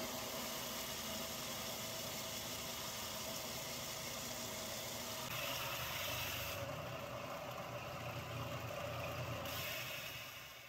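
Combination belt and disc sander running steadily while a glued-up half of a wooden vase is held flat against the moving sanding belt, with the gritty scrape of wood on abrasive. About halfway through, the sanding sound grows fuller and a little louder.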